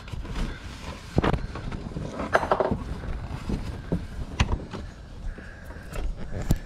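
A paper shop towel rubbing and wiping over plastic parts, with irregular knocks and clicks as the hand and towel bump the plastic.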